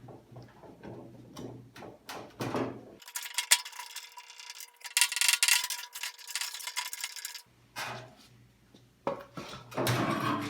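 Metal tools clinking, tapping and scraping against a steel car fender while a dent is worked out by hand: irregular light knocks with a stretch of harsher scraping noise and one sharper hit in the middle.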